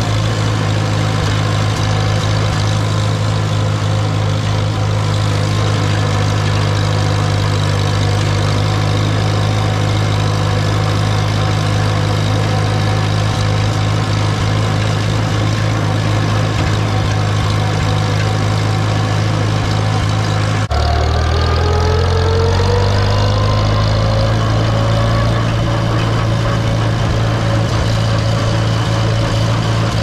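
A heavy farm engine runs steadily with a low hum. About two-thirds of the way through the sound changes abruptly, and the engine's pitch then climbs slowly as it speeds up.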